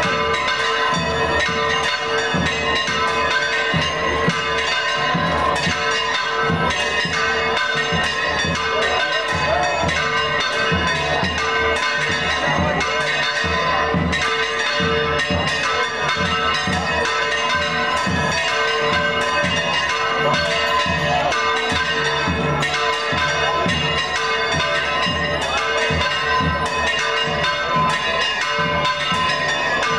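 Church bells ringing in a continuous, rapid peal, with crowd voices underneath.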